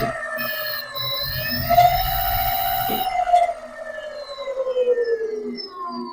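Electric scooter motor whining, its pitch rising about a second and a half in, holding, then sliding steadily down after about three seconds as it winds down. A low rumble runs under the whine while it is high and stops when the pitch starts to fall.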